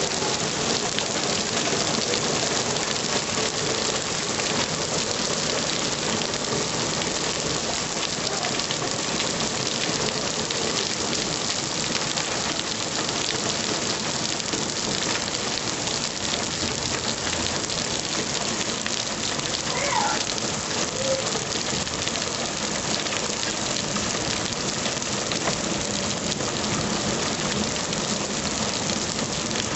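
Heavy downpour falling on a lawn, garden soil and a concrete step: a dense, steady hiss of rain.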